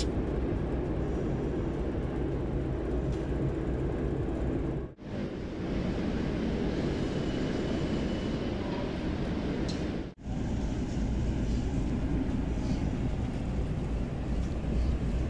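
Steady low rumble of a steam locomotive being shunted slowly out of its shed, broken twice by short gaps.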